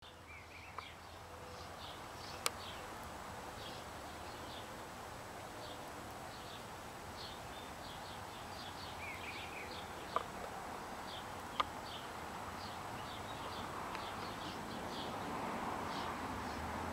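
Small birds chirping: many short, high notes repeated all through, over a low steady hum, with a few sharp clicks and a swell of background rustle near the end.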